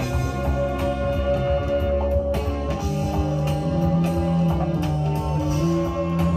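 Guitar music with sustained chords and a steady bass line, played from a vinyl record through a vintage JBL SE400S power amplifier into Klipsch Synergy F1 loudspeakers.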